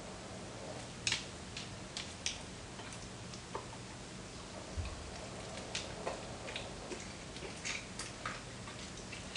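Dalmatian chewing and tearing at a large chunk of raw meat: irregular wet smacks and clicks of jaws and teeth, over a faint steady low hum.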